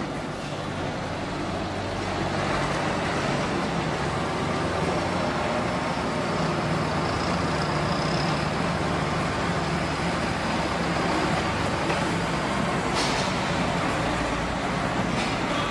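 Livestock truck's engine running steadily at low revs as the truck reverses slowly, with a faint high whine in the middle and a single sharp click near the end.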